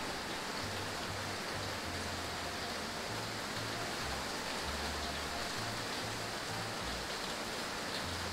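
Steady heavy rain falling, an even hiss of water.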